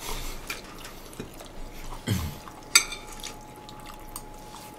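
Chopsticks and spoons clinking against ceramic bowls and plates during a meal: a few scattered sharp clinks, the loudest a little under three seconds in.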